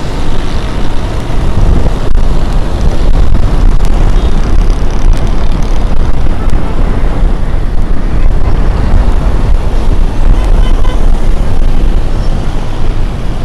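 Loud wind rush and road noise from riding along a busy city road, with a rough low rumble of wind buffeting the microphone and the hum of motorcycle and car traffic beneath.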